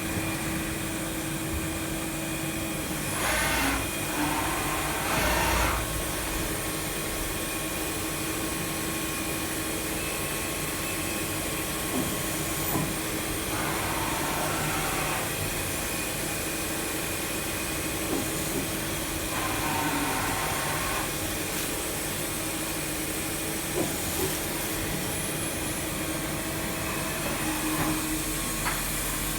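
CNC milling machine running through an M24 thread-milling operation: a steady machine hum and hiss with a constant tone underneath. Louder hissing spells of a second or two come three times, about 3 to 6 seconds in, around 14 seconds and around 20 seconds.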